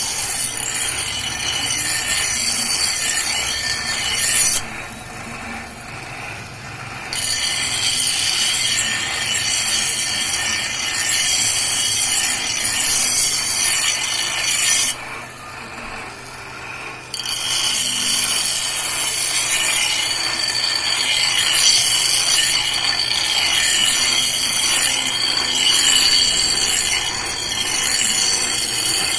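A metal blade being sharpened: a continuous grinding rasp that stops twice for about two seconds, over a low steady hum.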